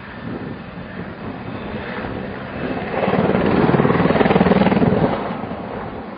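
Helicopter rotor and engine running with a rapid chopping pulse. It grows louder about three seconds in and fades again after about five seconds, as if passing close.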